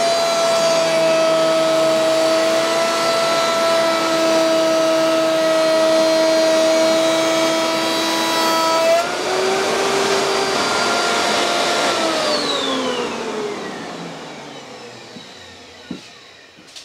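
Suhner UAL 23RF router motor in a router table, running together with a Record Power dust extractor as a workpiece is fed past the cutter. The steady whine shifts about nine seconds in. From about twelve seconds the motors spin down with falling pitch and fade away.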